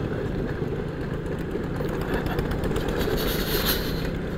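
Petrol Vespa scooter riding along at steady speed: its engine hum mixed with wind and road noise.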